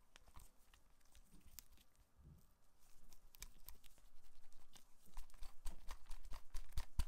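Gloved hands handling a HyperX Cloud II gaming headset: rubbing against the plastic ear cups and leatherette cushions, with a string of small clicks and taps that grow louder and closer together after about three seconds, the sharpest click near the end as a cable plug is brought to the ear-cup socket.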